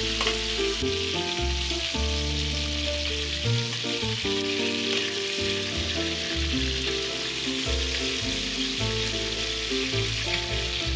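Lamb chops sizzling in hot ghee and rendered lamb fat in a stainless steel pan while metal tongs turn them: a steady frying hiss. Low steady notes of background music run underneath.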